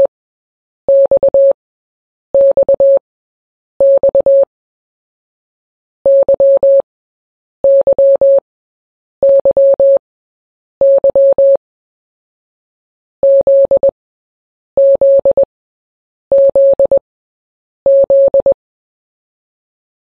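Morse code played as a single steady beep tone, spelling the letters X (dash-dot-dot-dash), Y (dash-dot-dash-dash) and Z (dash-dash-dot-dot). Each letter is repeated several times, with a short pause between repeats and a longer pause between letters.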